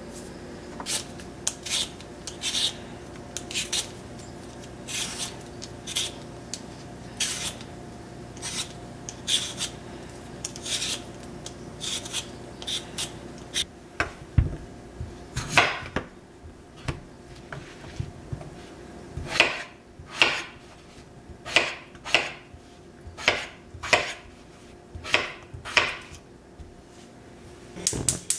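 Kitchen knife cutting raw potatoes on a cutting board: a long run of sharp chopping strokes at uneven spacing, about one a second, heavier in the second half. A steady low hum runs under the first half.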